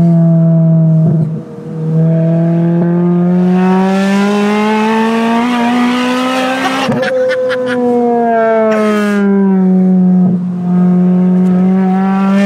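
Supercharged Toyota Corolla T-Sport 1.8 four-cylinder engine, its exhaust opened up by a custom system with the centre box and back box removed, running hard: the note climbs steadily for about five seconds, then falls away for about three, and rises again near the end, with a brief dip about a second and a half in.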